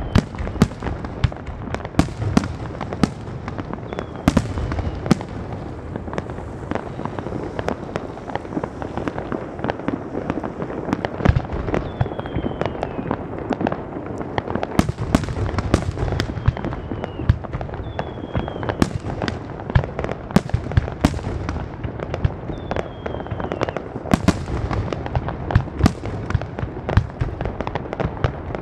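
Fireworks display: a dense, continuous run of sharp bangs from bursting shells over a steady crackle, with a few short falling whistles.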